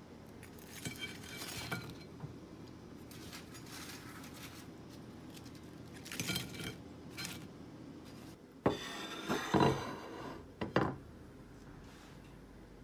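Metal kitchen utensils and dishes clinking as fried battered mushrooms and onion rings are lifted from the pot and laid on plates, in scattered light clinks with a louder clatter in the last third.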